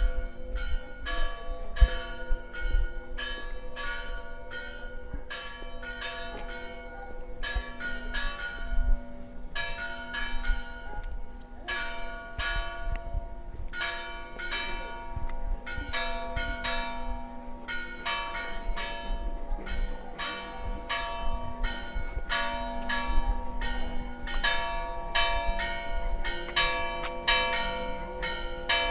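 Church bells ringing, struck over and over about twice a second, their tones ringing on and overlapping.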